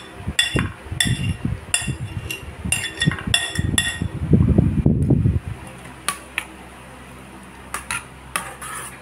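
Metal spoon scraping a thick tofu-and-egg mixture out of a plastic bowl into a stainless steel pan: repeated clinks with a short metallic ring, a louder low scraping rumble about four seconds in, then quieter spreading with a few taps against the pan near the end.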